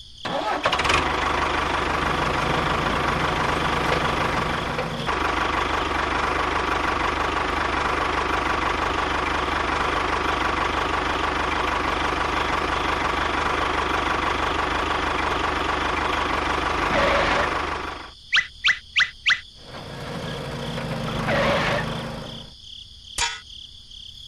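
Small toy tractor motor running steadily with an even hum for most of the time, then stopping. A quick run of five sharp clicks and a short second whir follow.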